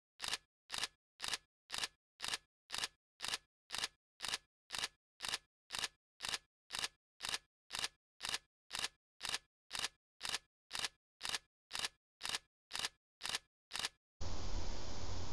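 A sharp clicking tick sound effect repeating about twice a second, each click counting up one number on an on-screen counter. The ticks stop about 14 seconds in and a steady hiss comes back.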